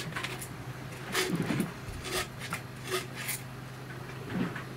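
A handful of short scrapes and knocks at uneven intervals over a steady low hum.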